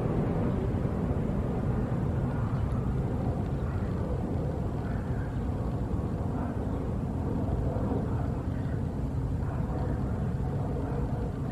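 Steady low rumble of distant engines, with a faint hum.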